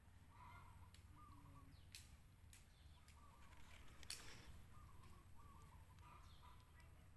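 Faint, short, high squeaky calls from a small animal, repeated every half second or so, with a few sharp clicks, the loudest about four seconds in.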